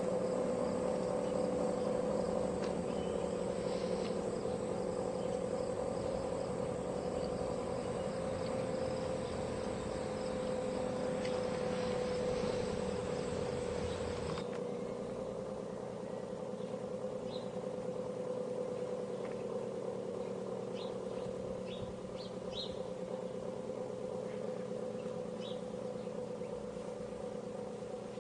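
Synthesized Cold War–era Federal civil-defense air raid sirens with 9/12-port rotors sounding a chord of steady tones that sags slightly in pitch and slowly fades. Crickets and birds chirp behind it, the cricket hiss stopping abruptly about halfway through and bird chirps following.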